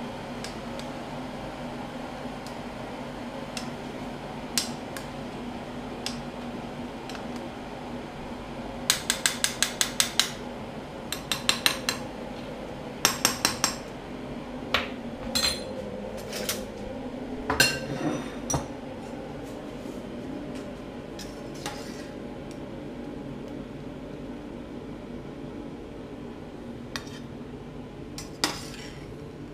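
Metal spoon clinking and tapping against the side of a stainless steel pot while stirring dumplings in boiling water, in quick runs of rapid taps around the middle, then a few single knocks. A steady hiss continues underneath.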